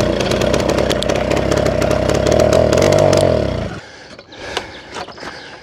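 Old moped's small engine being pedal-started, running roughly with a fast buzz and rattle, then slowing and dying out about three and a half seconds in.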